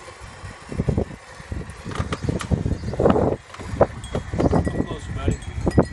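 Gusty wind buffeting the microphone in irregular low blasts, with faint high chiming tones ringing through.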